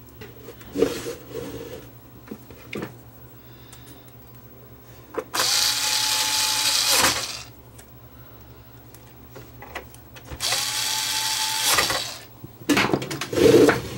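Cordless electric screwdriver running twice, about two seconds each, driving screws into a stereo unit's sheet-metal top cover. Each run is a steady whine that winds up as it starts and down as it stops. A few knocks and handling clatter come before the first run and after the second.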